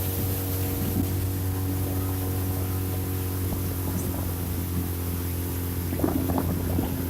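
A boat's motor running steadily under way, a constant low drone, with rushing noise that grows choppier near the end.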